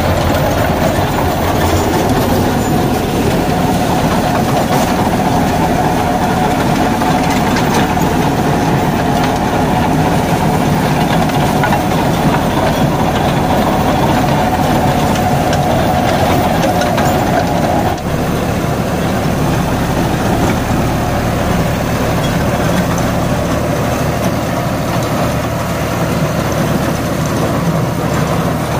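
Deutz-Fahr Agrolux 80 tractor engine running under steady load, driving a Shaktiman Tusker rotavator that churns banana stalks and residue into the soil. A steady whine rides over the engine noise and stops abruptly about two-thirds of the way through.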